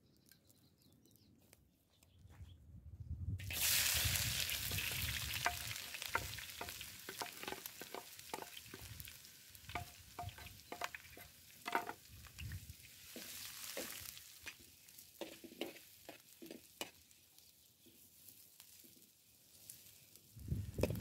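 Sliced onions sizzling in hot fat in a metal wok-shaped pan, the hiss starting suddenly a few seconds in and then settling down. Through it come sharp clicks and scrapes of a knife and a metal ladle against the board and the pan as the onions are pushed in and stirred.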